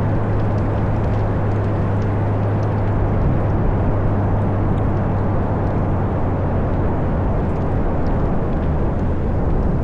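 Ferrari GTC4Lusso's V12 running through a Capristo aftermarket exhaust while cruising at steady speed, a continuous low drone over a rush of road noise, its pitch easing down slightly near the end.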